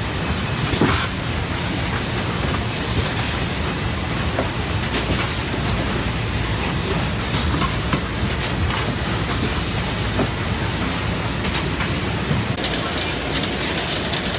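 Citrus packing-line machinery running: a steady mechanical din of conveyors and the automatic box-packing machine, with scattered clicks and knocks. Near the end a denser, higher rattle sets in.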